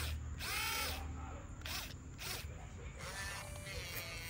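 Small electric gear motors of an RC toy excavator whirring in about five short bursts, each rising and falling in pitch as the boom, arm and bucket are driven; the last burst, starting about three seconds in, is the longest.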